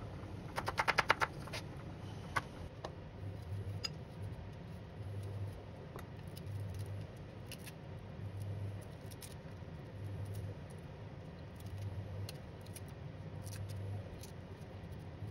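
Chef's knife chopping onion on a wooden cutting board: a quick run of about ten sharp knife strikes about a second in. Then scattered small clicks and taps as garlic cloves are peeled and handled.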